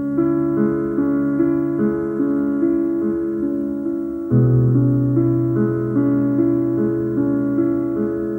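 Slow piano music: held chords in a gently repeating pattern, with a lower, louder bass note coming in about four seconds in.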